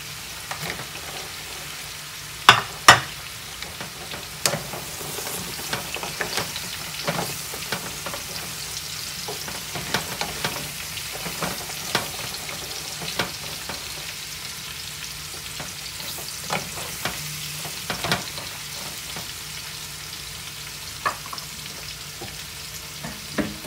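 Carrots, onion and cauliflower sizzling in oil in a frying pan while being stirred with a wooden spatula, with scattered sharp knocks against the pan; the loudest are two close together about two and a half seconds in.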